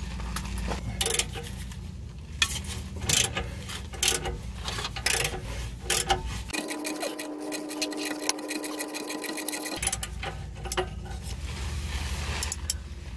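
Ratchet clicking in repeated uneven runs as an oxygen-sensor socket turns a seized downstream O2 sensor out of a 1999 Jeep Cherokee XJ's exhaust.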